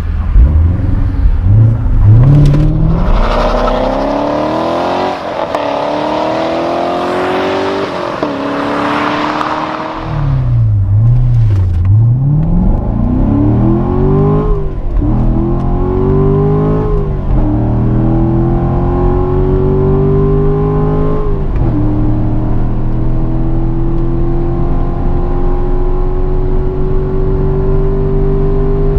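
Chevrolet Corvette C7 Stingray's 6.2-litre naturally aspirated V8 at hard acceleration, heard from inside the cabin. The engine note climbs and drops back again and again as it goes up through the gears, then pulls in one long steady rise through the second half.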